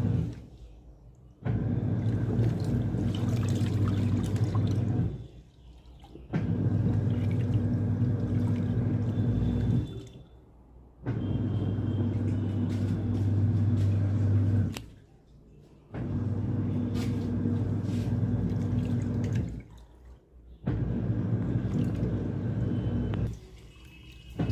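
Washing machine washing a big blanket: the motor hums and water sloshes as the drum turns in runs of about four seconds, stopping for about a second between runs.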